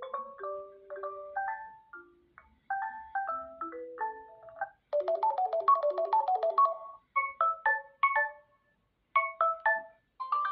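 Samsung Galaxy A26 ringtones playing from the phone's speaker: short mallet-like melodies of bright plucked notes, like a marimba. A denser, busier tone takes over about halfway through and gives way to sparser notes. Another tone begins near the end.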